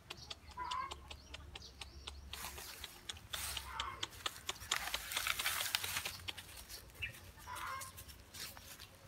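Dry bamboo leaves rustling and crackling under steps, loudest in the middle. Three short calls, about a second in, near four seconds and near the end, are heard over it.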